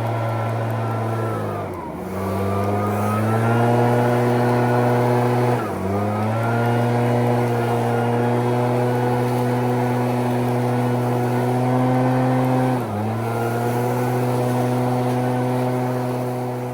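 Echo PB-9010T backpack leaf blower's single-cylinder two-stroke engine running at high throttle. Its pitch dips and climbs back three times as the throttle is eased off and reopened.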